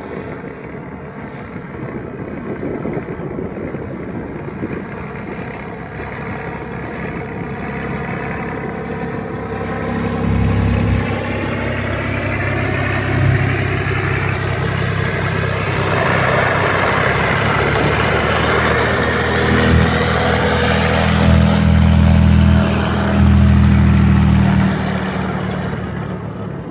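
Cessna 206G single-engine propeller plane on a short landing, its piston engine and propeller running steadily. The sound grows louder from about ten seconds in, peaks near the end and then eases off.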